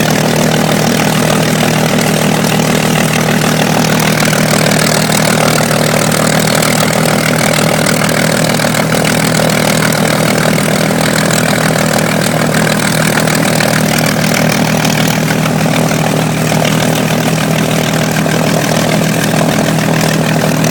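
Vintage warbird fighter's large piston aero engine running steadily at idle after startup, its speed unchanging throughout.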